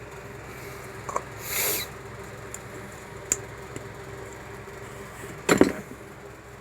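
Steady electrical hum with small handling noises: a brief rustle about a second and a half in, a few faint clicks, and a louder knock about five and a half seconds in.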